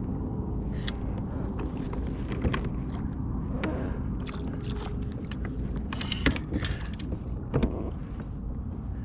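Steady low rumble of a kayak out on the water, with a few sharp knocks and clicks scattered through it; the loudest knock comes a little past six seconds in.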